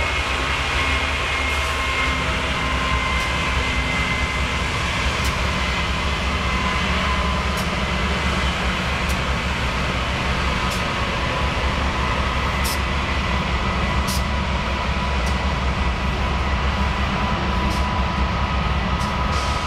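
BNSF diesel locomotive running through the rail yard: a steady, loud low engine rumble with a faint steady high tone, and sharp clicks every second or two.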